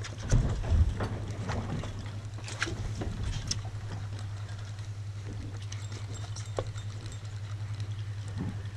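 Small boat rocking at sea: water slapping against the hull, with a few sharp knocks in the first second and light clicks later, over a steady low hum.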